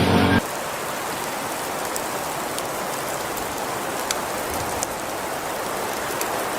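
Steady hiss of falling precipitation with scattered light ticks. The last moment of a car engine running cuts off abruptly just under half a second in.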